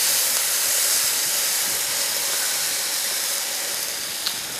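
Milk and cornstarch mixture poured into a hot stainless steel pan of broccoli and ham, sizzling with a steady hiss that slowly dies down.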